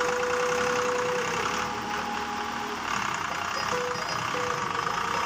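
Swaraj 735 FE tractor's three-cylinder diesel engine running as the tractor drives past, on a test run after a new clutch plate has been fitted.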